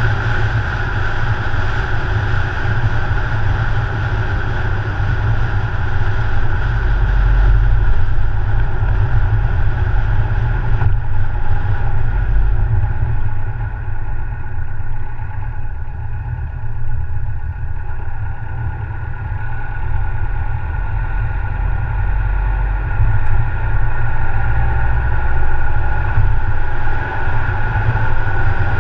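Steady rumble of a car driving along an open road: tyre and engine noise, dipping a little midway and building again near the end.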